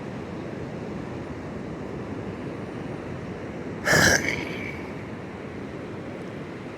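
Surf washing steadily on a sandy beach, with wind on the microphone. About four seconds in, one short, sharp, loud sound with a brief high ring after it cuts through.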